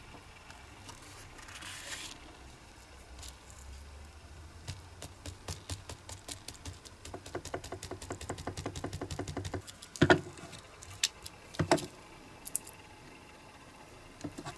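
Small handling noises on a workbench: a run of quick light clicks for about five seconds, then two loud sharp knocks about two seconds apart, and a few faint taps near the end.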